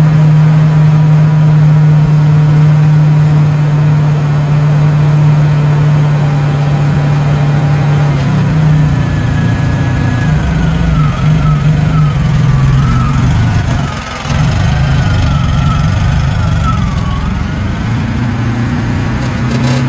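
Wood-Mizer LX150 bandsaw mill's engine running steadily, its note turning rougher and more uneven about halfway through, with a short dip a little later and a faint wavering whine over it.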